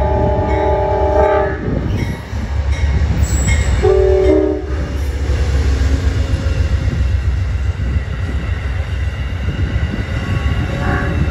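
Amtrak passenger train sounding its multi-chime horn through a grade crossing. A held blast ends about a second and a half in and a short blast follows around four seconds in. Then the coaches rumble and clatter past on the rails.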